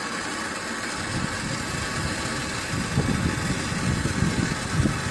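Torch flame hissing with a fluttering low roar, heating the spare-tire lock bolt so the plastic holding it softens; the roar swells about a second in.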